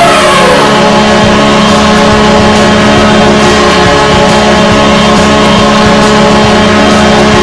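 Ice hockey goal horn blaring, loud and sustained, with a deep steady tone. Its higher tones dip in pitch about half a second in.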